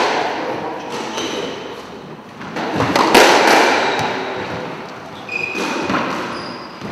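Squash ball struck hard against the court walls in a rally, several sharp smacks, the loudest about three seconds in, each ringing out in the court's hollow echo. A few short high squeaks come in between the hits.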